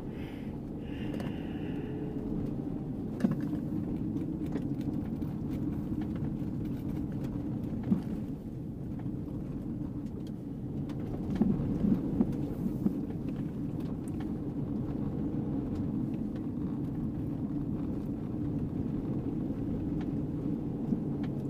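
Car driving on a gravel road, heard from inside the cabin: steady engine and tyre rumble on the loose gravel. A few sharp knocks cut through, about 3 s and 8 s in and a cluster around 12 s.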